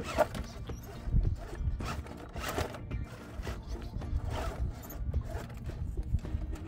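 RC rock crawler working its way up a rock crevice: its tires and chassis knock and scrape on the rock in irregular clicks and clunks over a low rumble.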